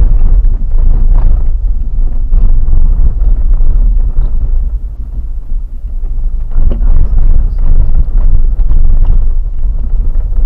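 A vehicle driving over a rough gravel track, heard from the cabin: a loud, deep rumble with frequent knocks and rattles from the bumps, and wind noise on the microphone.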